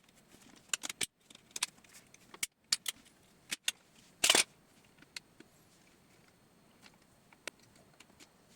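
Scattered sharp clicks and taps as an SNS Pilot cross-country ski binding is worked on by hand after its rear guide is snapped off, with one short scrape about four seconds in.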